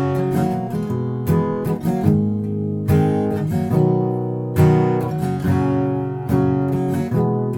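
Background music: strummed acoustic guitar with a steady rhythm of chords.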